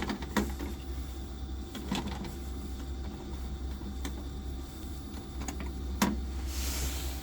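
Biasi combi boiler running with a steady low hum, over which come scattered sharp clicks and knocks, the loudest about six seconds in, and a brief hiss near the end.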